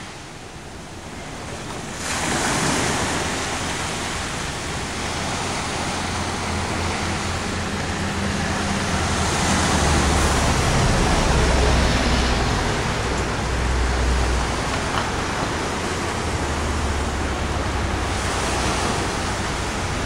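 Pacific Ocean surf breaking and washing up on a sandy beach, a steady wash of noise that grows louder about two seconds in. Patches of low wind rumble on the microphone come and go over it.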